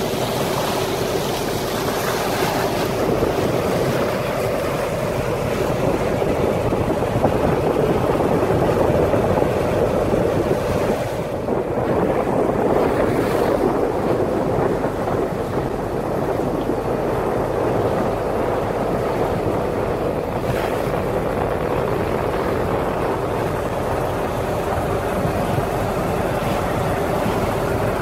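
A boat's engine running steadily under way, with water rushing past the hull and wind buffeting the microphone.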